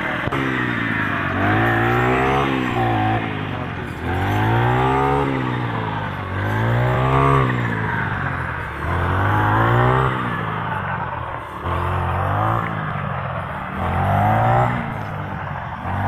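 Brush cutter engine cutting wheat, revving up and falling back again about seven times, roughly every two seconds, as the blade is swung through the stalks.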